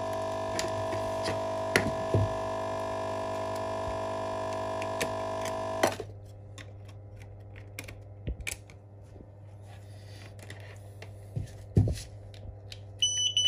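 A steady electrical hum with many overtones that cuts off suddenly about six seconds in. Light clicks and taps follow as a phone screen tester and its flex-connector adapter board are handled, and the tester gives a high electronic beep near the end.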